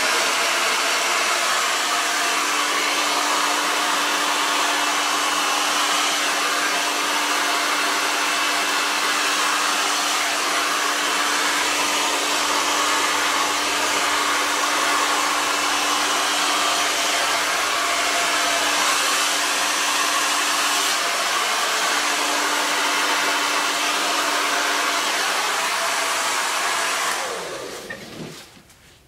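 Hair dryer running steadily, blowing wet poured paint across a tabletop. A rush of air with a steady motor hum under it, switched on at the start and cut off near the end.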